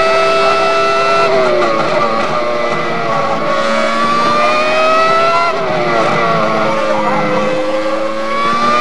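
Ferrari engine running loud at high revs with a high-pitched scream. Its pitch drops about a second in, climbs slowly, falls again around five and a half seconds in, and rises once more near the end.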